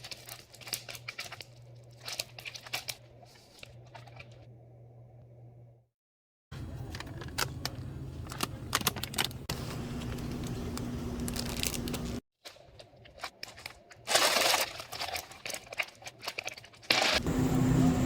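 Plastic candy and snack wrappers crinkling and tearing as packages are opened, in several short stretches with abrupt cuts between them.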